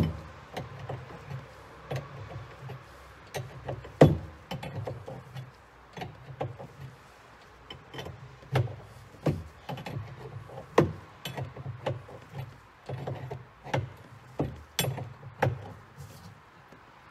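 Wrench clicking and knocking against the brass hydraulic line fittings of a SeaStar steering helm as they are snugged down, in irregular taps and clinks with a sharper knock about four seconds in. Low handling rumble comes and goes underneath.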